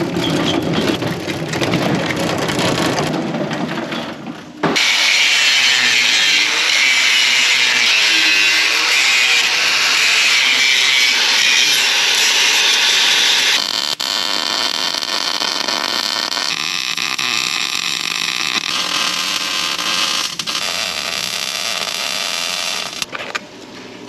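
Metalwork repair on cracked old farm equipment: welding and grinding noise, a steady harsh sound that gets much louder about five seconds in and changes character again about halfway through.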